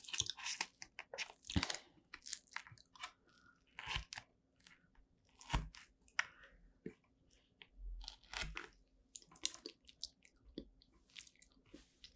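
Close-miked eating of a strawberry rare cheese tart: crunchy bites and chewing of the pastry shell and cream, with short clicks of a metal fork cutting through the tart against the plate.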